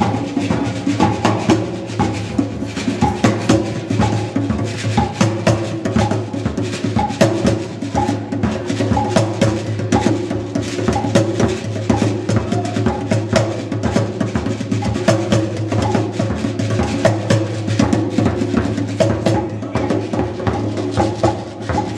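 Several hand drums, among them a frame drum, played together in a fast, dense rhythm of many strokes a second, over a steady low hum.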